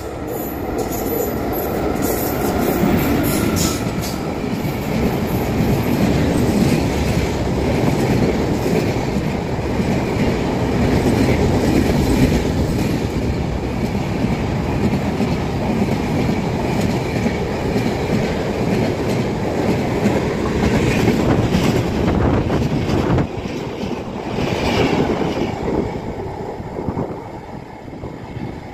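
Kanyakumari–Howrah Superfast Express, a long-distance passenger train, running through a station at speed: a continuous loud rush of wheels on rail as the coaches pass. The noise builds as the train arrives and falls away near the end as the last coach goes by.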